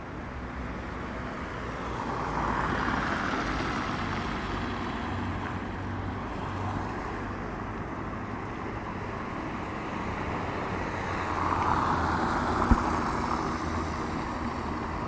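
Road traffic: two vehicles pass in turn, their tyre noise on the wet road swelling and fading over a steady background hum, with a single sharp knock near the end.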